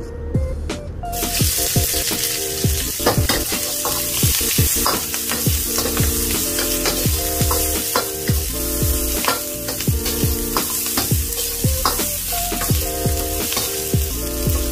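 Sliced red onions sizzling in a hot oiled wok, the hiss starting suddenly about a second in as they go into the pan. A metal spatula scrapes and clicks against the wok as they are stirred.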